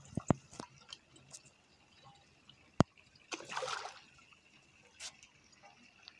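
Pond water splashing and dripping at a reedy edge, with a brief splash about three and a half seconds in. A few small clicks and one sharp click come just before it.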